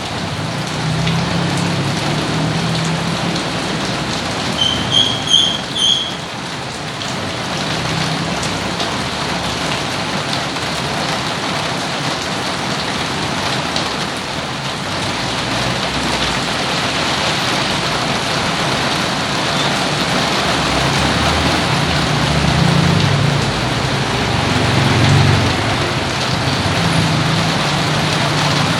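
Steady rain falling, an even hiss of drops. About five seconds in, three short high-pitched chirps sound over it.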